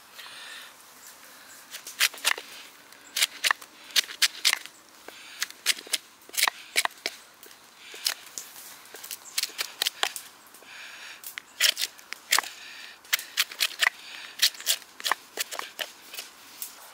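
Bushcraft knife carving a log into a mallet handle: the blade biting into the wood with sharp, irregular cracks and snaps as chips come away, in clusters with short pauses.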